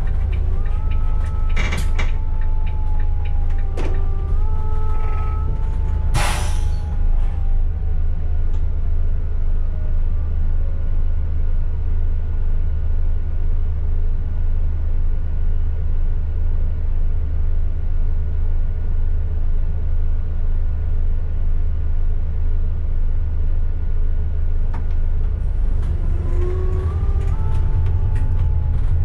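City bus heard from on board: a steady low engine hum throughout, with a drivetrain whine that falls away as the bus slows to a stop and a sharp hiss of air from the brakes about six seconds in. The bus then stands with the engine idling, and the whine rises again near the end as it pulls away.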